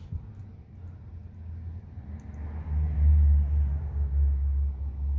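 A low, steady rumble that swells about two and a half seconds in and then holds, like a vehicle engine running close by.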